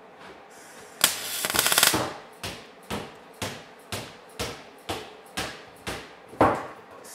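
MIG welder arc crackling on a stainless steel exhaust downpipe: one longer weld bead about a second in, then a run of short tack or stitch pulses about twice a second.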